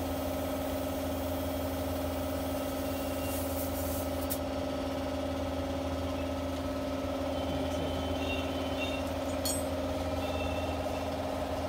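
A motor or engine running steadily at one even pitch, with a short faint hiss a little over three seconds in.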